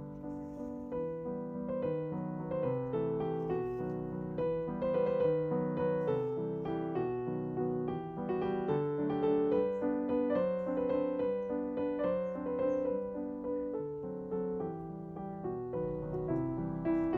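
Background piano music, a gentle melody over chords.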